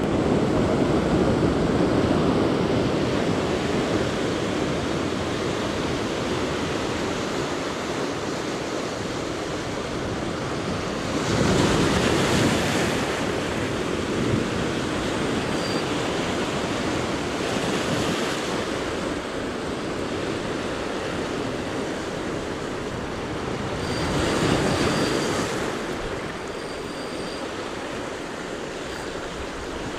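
Sea surf washing against the shore, a steady rush of water with three louder surges about six seconds apart.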